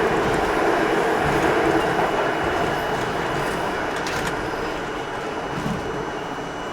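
R42 subway train running on the rails, a steady rumble of wheels and car that gradually dies down as the train slows, with a few sharp clicks about four seconds in.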